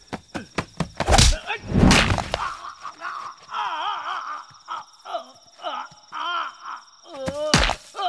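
Fight-scene sound effects: heavy punch and body-hit thuds, two in the first two seconds and another near the end, with men groaning and moaning in pain in between.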